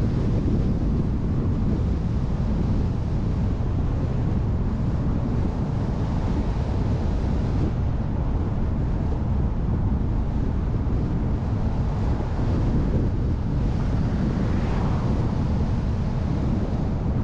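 Steady rumble of a vehicle driving along a road, with wind buffeting the onboard camera's microphone. A brief swell rises and falls about three-quarters of the way through.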